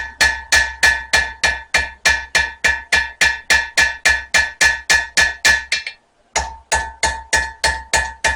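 Hand hammer striking a spring-steel knife blade on an anvil, about three to four blows a second, each with a bright metallic ring; the hammering breaks off briefly about six seconds in and then resumes. The blows are forging the bevel into the second side of the blade.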